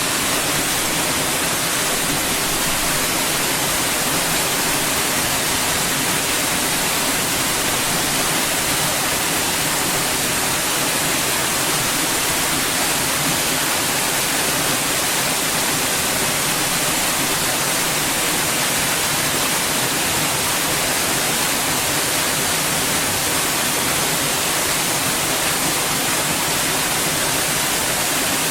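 White noise: a steady, even hiss spread across all pitches, strongest in the highs, holding one level throughout.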